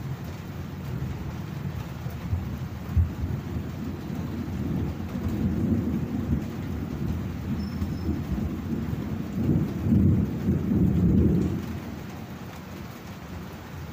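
Steady rain with a long roll of thunder that swells about five seconds in, is loudest around ten to eleven seconds in, then fades away near the end. A single sharp knock comes about three seconds in.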